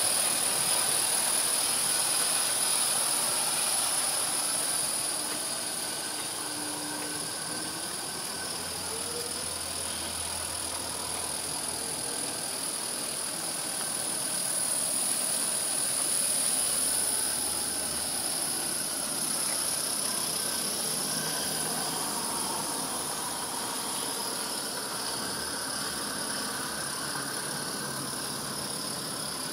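Five G-scale live-steam locomotives coupled together and running, giving a steady hiss of steam.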